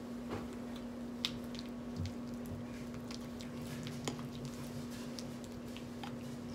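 A spoon stirring thick glue-and-shaving-cream slime in a bowl: irregular wet squishes and small clicks of the spoon against the bowl as the slime activates and stiffens, over a steady low hum.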